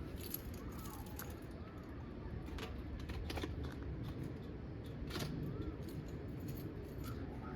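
Faint handling noises: scattered light clicks and rustles as a fabric fire pit cover is unpacked and fitted.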